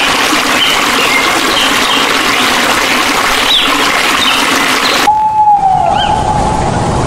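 A steady hiss with a few faint short chirps, then, about five seconds in, an owl hooting: one clear hoot that slides down in pitch.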